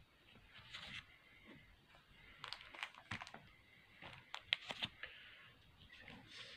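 Plastic comic-book sleeves crinkling and clicking as bagged comics are handled and shuffled, in two clusters of short crackles, the sharpest about four and a half seconds in.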